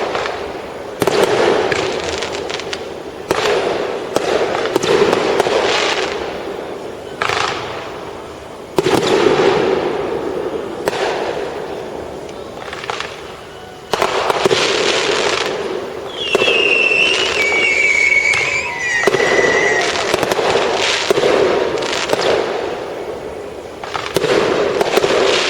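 Fireworks going off in a rapid series of bangs, each trailed by crackling. A falling whistle sounds about two-thirds of the way in.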